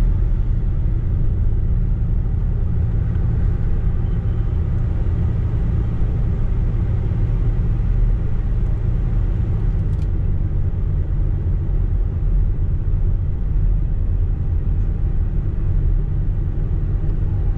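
Steady low rumble of a car's road and engine noise heard inside the cabin while driving, with one faint click about ten seconds in.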